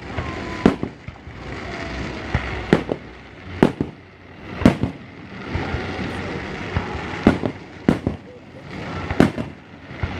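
Aerial fireworks shells bursting with sharp booms, about seven in ten seconds at uneven intervals of one to two seconds, over the steady murmur of a crowd.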